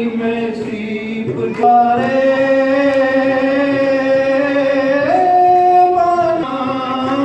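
Slow singing in long held notes, with the pitch stepping up a little over a second and a half in and again about five seconds in, then back down near the end.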